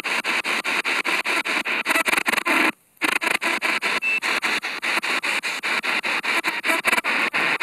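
Spirit box radio sweeping through stations, played through a small Altec Lansing portable speaker: choppy static and radio fragments chopped up several times a second, with a brief dropout about three seconds in.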